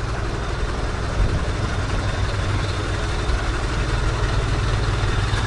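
Small truck's engine running steadily while driving at highway speed, heard from inside the cab as a low drone mixed with road noise; it runs smoothly.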